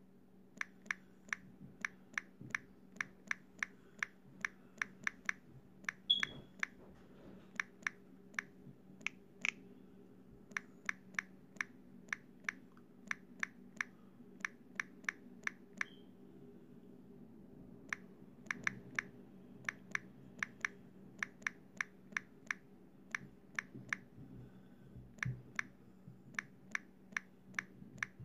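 Rapid, irregular sharp clicks, a few per second with short pauses, over a faint steady low hum.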